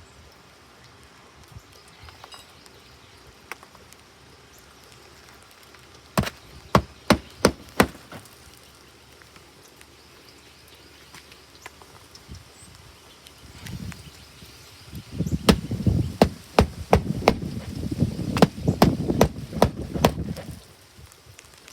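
Hammering: a quick run of about six sharp strikes a few seconds in, then a longer, louder stretch of rapid knocks over heavy rumbling and banging from about fourteen seconds in.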